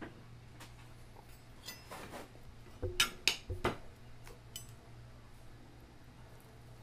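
Steel knife and fork clinking against a ceramic plate while slicing steak: scattered light clicks, with a louder run of three or four clinks about three seconds in.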